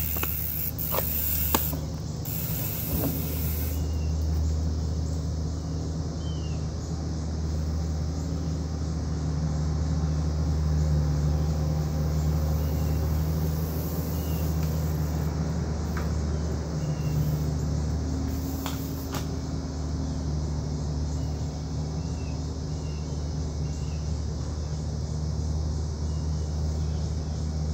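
A vehicle engine running steadily with a low hum, swelling a little about ten seconds in.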